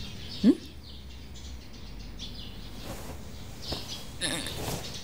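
Small birds chirping repeatedly in the background. About half a second in there is a short rising vocal sound, and near the end a brief rustling.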